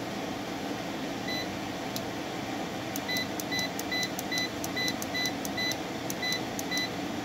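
B&H CW-5200 water chiller's digital controller beeping as its Set button is pressed to step through the parameter menu. Short high beeps come twice early on, then about three a second from about three seconds in, over a steady machine hum.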